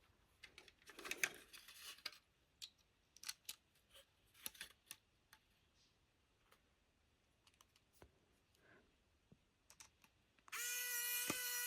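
Scattered light clicks and scrapes of small plastic model railroad parts being handled while couplers are fitted to a car. Near the end a small electric tool motor starts with a steady high whine, the loudest sound.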